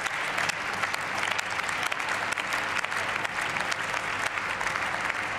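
Sustained applause from members of parliament, many hands clapping steadily.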